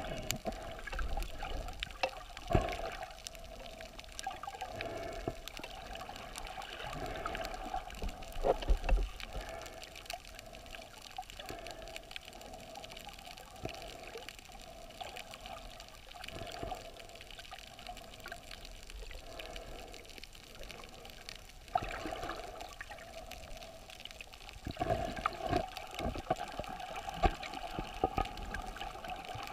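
Muffled underwater sound picked up by a camera in a waterproof housing: water sloshing and bubbling against the housing, with scattered thumps.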